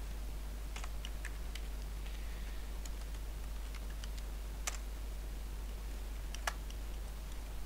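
Computer keyboard keys tapped at an irregular pace, a dozen or so sharp clicks, with a steady low electrical hum underneath.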